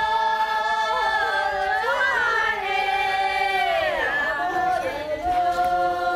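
Women's voices singing together in long, held high notes. The pitch slides down about four seconds in and settles on a long held note near the end.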